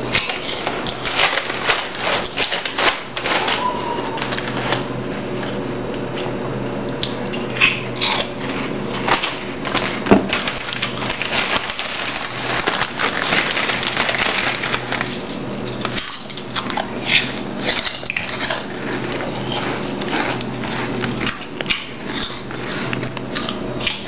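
Crunchy snacks being chewed and handled close to the microphone: a dense, irregular run of sharp crunches and crackles over a steady low hum.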